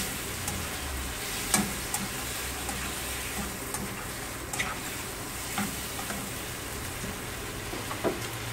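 Squid and garlic frying in a pan, a steady sizzle as a spatula stirs and tosses them. A few sharp scrapes and taps of the spatula against the pan break in, the clearest about one and a half seconds in and near the end.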